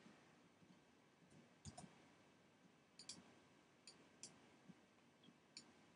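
Near silence broken by about eight faint, scattered clicks from a computer mouse and keyboard, some coming in quick pairs, as on-screen objects are selected, dragged and pasted.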